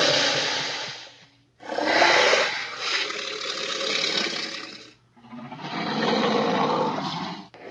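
Baryonyx dinosaur roar sound effects: a run of long, harsh roars, each two to three seconds long, with short breaks between them.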